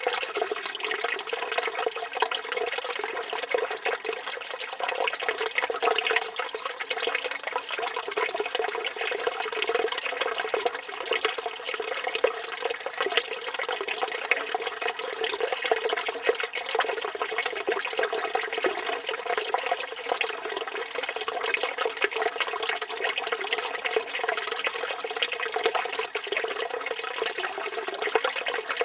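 Water from a village fountain's spout pouring steadily and splashing.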